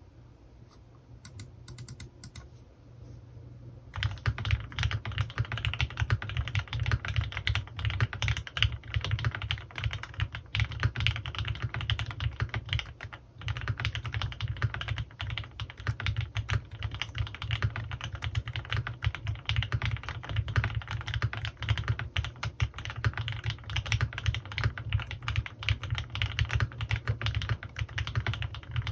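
Typing on a CannonKeys Rekt1800 custom mechanical keyboard with lubed Gateron Ink Black V2 linear switches and PBT keycaps. A few light keystrokes come first; from about four seconds in, fast, continuous clacking follows, with a brief pause around the middle.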